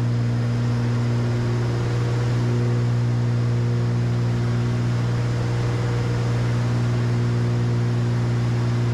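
Cessna 310Q's twin piston engines and propellers droning steadily in flight, heard in the cockpit: a constant low hum with a few steady overtones over a noise haze.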